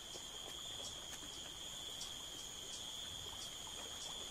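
A steady, high-pitched insect drone with a faint pulse about three times a second, over quiet forest background.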